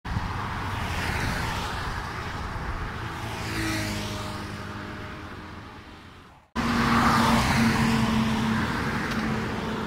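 Highway traffic passing close by, the rush of tyres and engines swelling and fading as vehicles go past. It breaks off abruptly about two-thirds of the way through and picks up again at once.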